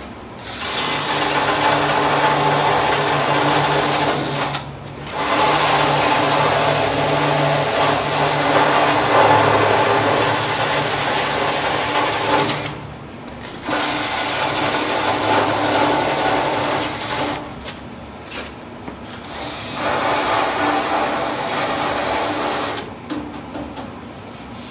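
Cordless power tool running against the sheet-metal front fender of a 1966 Plymouth Belvedere, stripping the paint. It runs in four long stretches with short pauses between them.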